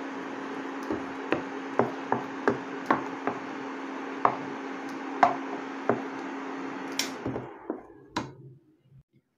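A spatula scraping and knocking against a nonstick pan of thickened mango jam as it is stirred, in irregular light knocks, over the steady hum of an induction cooktop. About seven seconds in there is a sharp click, and the cooktop's hum and fan noise die away as it is switched off, leaving a few faint knocks.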